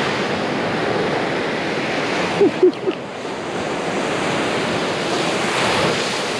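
Surf washing onto a sandy beach, a steady rushing noise, with wind buffeting the microphone. About two and a half seconds in, three short squeaks cut through.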